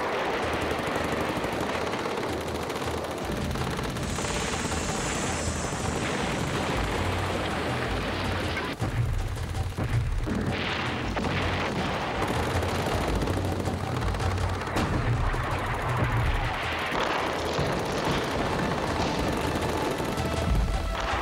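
Battle sounds: dense, continuous gunfire and explosions. A low rumble sets in a few seconds in and grows heavier about nine seconds in.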